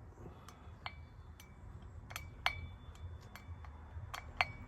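Sharp metallic ticks and clinks, about a dozen at uneven spacing, some ringing briefly: a hand tool working the brake disc rotor bolts on an e-bike hub motor as they are checked for tightness.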